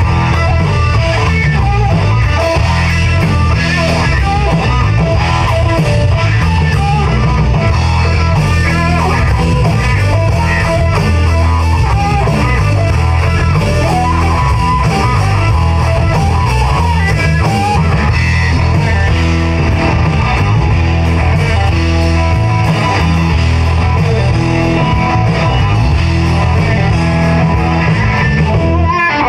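Live rock band playing, with a solid-body electric guitar to the fore over a strong bass.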